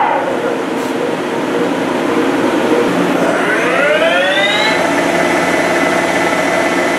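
Doosan S700 CNC lathe spindle spinning its chuck over a steady machine hum; about three seconds in, the spindle speeds up with a rising whine that levels off into a steady whine.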